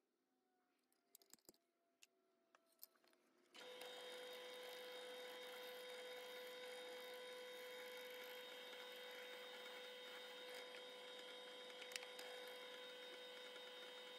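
Drill press motor running with a steady hum and whine while the bit drills a hole through the steel handle of a small knife blank. The sound starts abruptly about three and a half seconds in. Before that there are only a few faint clicks of a steel scribe on the blank.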